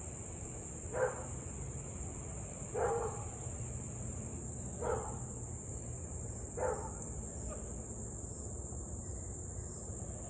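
Husky barking: four single barks about two seconds apart.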